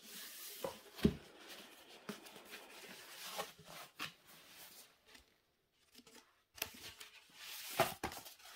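Paper and plastic rustling and crinkling as a rolled diamond-painting canvas is handled on a felt mat, with two louder knocks, one about a second in and one near the end.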